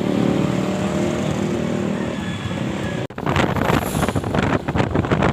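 Motorcycle engine running steadily on the move. About three seconds in the sound cuts abruptly to loud, gusty wind buffeting on the microphone as the bike rides.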